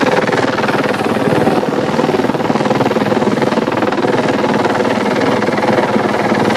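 Helicopter overhead, its rotor beating in a steady, rapid chop.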